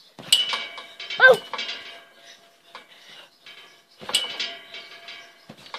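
Trampoline springs jangling and ringing with a clatter as someone lands and bounces, twice. There is a short wavering yelp about a second in.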